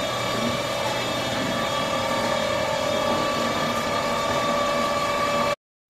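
Poultry-farm machinery running steadily, a loud hum with several steady whining tones over a noisy rush; it cuts off suddenly near the end.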